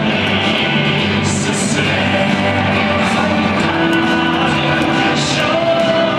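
A rock-style team fight song with singing and guitar.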